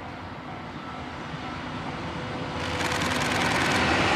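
EF64 electric locomotive hauling a train of 12-series passenger coaches approaching on the track, a steady rumble growing louder and rising sharply about two and a half seconds in as the locomotive comes close.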